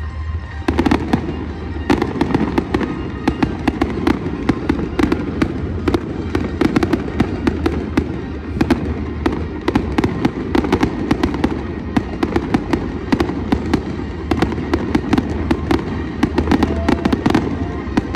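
Fireworks display going off continuously: a rapid, dense string of sharp bangs and crackles over a steady rumble, starting about half a second in.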